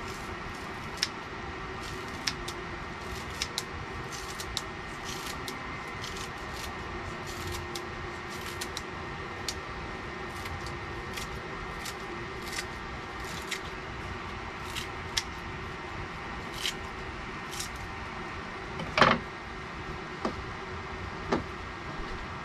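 Kitchen scissors snipping fresh herbs, a string of short sharp clicks at uneven intervals over a steady background hum, with one louder knock about nineteen seconds in.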